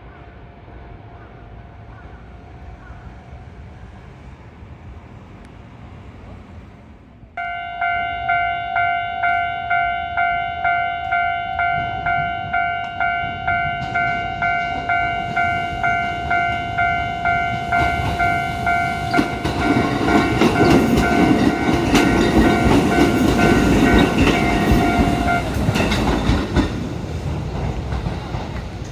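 Japanese level-crossing warning bell starts about seven seconds in, ringing a steady tone at about two strokes a second. A train passes through the crossing from about eighteen seconds in, its wheels clacking over the rail joints. The bell stops a little before the train noise fades.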